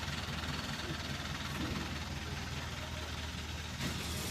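Steady machinery noise: an even hum with a low electrical drone under a broad hiss, with no breaks or changes.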